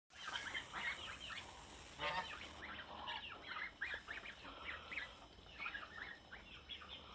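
Flock of domestic geese giving short honks and gabbling calls while feeding, one call a little louder about two seconds in.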